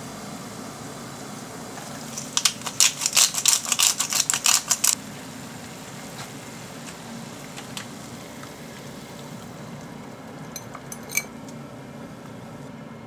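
Dried glass noodles (harusame) crackling sharply as the brittle bundle is handled, a fast run of crisp crinkles lasting about two and a half seconds, over a steady kitchen hum. A few light clinks of a metal ladle against the enamel saucepan follow near the end.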